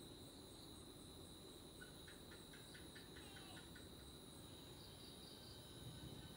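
Faint, steady high-pitched insect trill, with a quick run of soft chirps about two seconds in.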